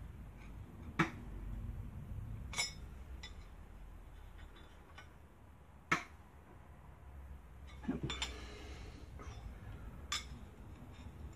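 Irregular sharp metallic clinks, about half a dozen, of a freshly quenched steel knife blade tapping against a steel straightedge as the blade is checked for warp, with a brief rustle of gloved hands about eight seconds in.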